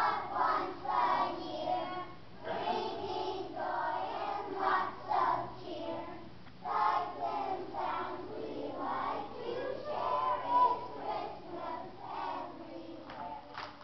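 A choir of first-grade children singing together in unison; the singing stops near the end.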